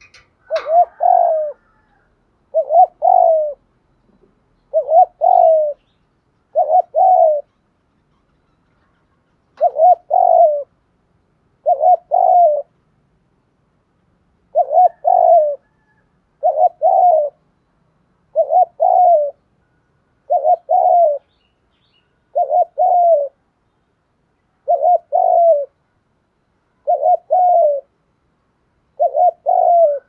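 Spotted dove cooing: about fourteen short phrases, each a quick pair of soft coos, repeated roughly every two seconds with a couple of longer pauses.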